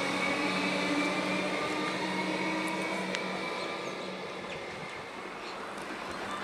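Comeng electric suburban train pulling away, its motor whine and running noise fading steadily as it moves off.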